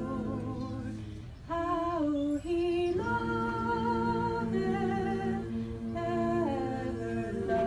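Mixed group of young men and women singing a cappella in harmony, slow phrases of long held notes, with a brief breath pause about a second and a half in.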